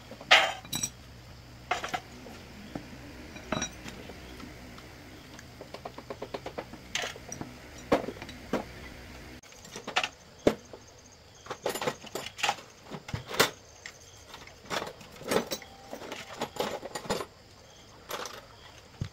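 Metal tools and parts clinking and knocking against each other during hands-on repair work: irregular sharp, ringing metallic knocks, with a quick even run of light ticks about six seconds in.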